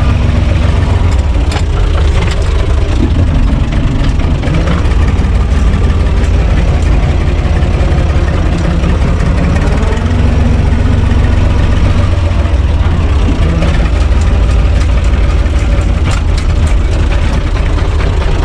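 UTB U445 DT 4x4 tractor's diesel engine running steadily, heard loud from inside the cab, with a strong low drone.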